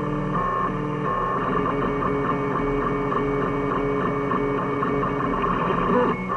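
Home-built 3D printer's stepper motors whining in short repeated tones of a few fixed pitches as the print head moves back and forth, over a steady low hum.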